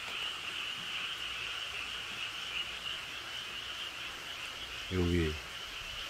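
A dense chorus of frogs calling continuously, a steady high-pitched massed croaking that never lets up.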